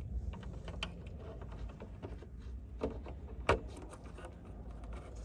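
Small plastic clicks and handling sounds from a car's rear turn-signal bulb socket and lamp housing as it is worked by hand; the sharpest click comes about three and a half seconds in, over a low background rumble.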